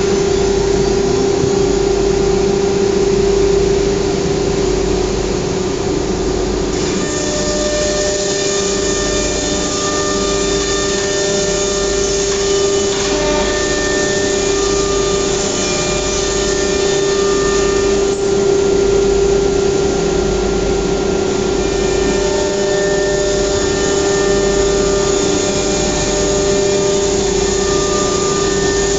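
Philicam F3 CNC router working a wood-grain panel: a steady, high spindle whine over the noise of dust extraction. About seven seconds in, a harsher, fuller hiss with shifting tones joins it.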